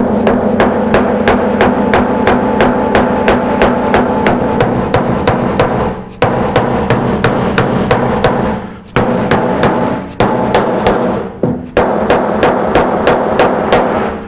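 Rubber mallet tapping rapidly on a steel truck door skin, about four light blows a second in runs broken by short pauses, the panel ringing under the blows. The mallet is gently working down high spots around a dent while a jack pushes the low spot up from beneath.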